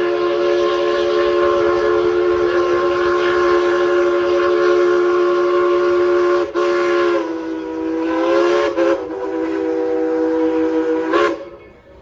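Steam locomotive whistle blowing one long chord of several notes, its pitch sagging slightly about seven seconds in, then cutting off sharply about a second before the end. The locomotive is coal-fired.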